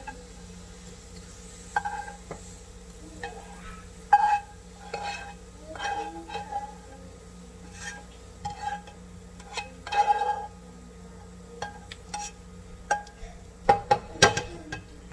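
A spatula scraping and knocking against a nonstick frying pan as crisp fried onion slices are scraped out into a glass bowl: a dozen or so irregular scrapes and taps, each with a short metallic ring, the loudest about four seconds in and a quick run of knocks near the end. A steady low hum runs underneath.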